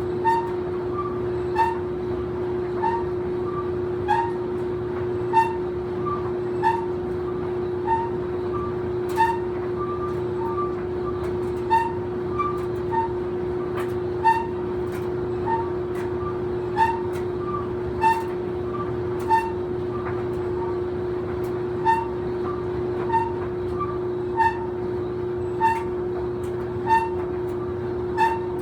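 Old clothes dryer running with a steady hum, squeaking about every 1.3 seconds in a regular rhythm.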